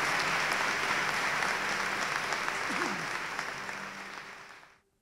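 Audience applauding, the clapping fading over the last two seconds and then cutting off sharply near the end.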